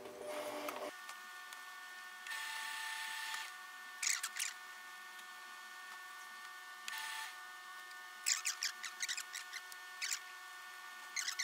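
Mink fur pieces and their fabric lining handled and slid across a worktable: a few brief swishing rustles, then bursts of sharp scratchy crackling toward the end, over a faint steady hum.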